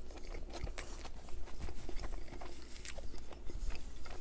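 Close-miked chewing of a mouthful of Whopper Jr. burger: a run of small, quick mouth clicks.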